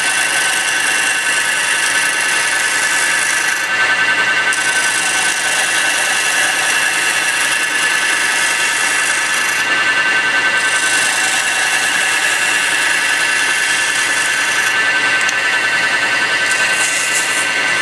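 Mini wood lathe running with a steady whine while a turning chisel cuts a spinning wooden cylinder, giving a continuous hissing scrape. The cutting hiss drops out briefly three times, near four, ten and fifteen seconds in, while the lathe's whine runs on.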